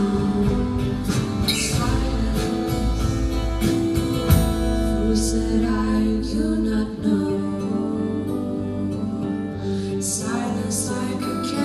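Music: a song played on guitar with singing.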